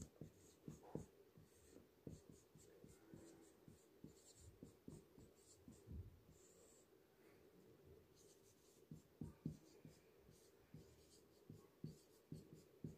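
Whiteboard marker writing on a whiteboard: faint, irregular strokes and taps with short squeaks as each letter is drawn.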